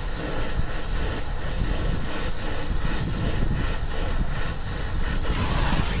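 Brazing torch flame burning with a steady rushing hiss as it heats a copper line joint on a filter drier, bringing it up to temperature for brazing.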